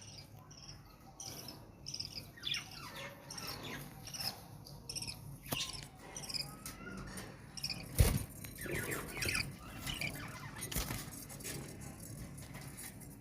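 Parrot chicks calling: many short, high calls, each sliding down in pitch, coming in quick succession. A loud knock sounds about eight seconds in.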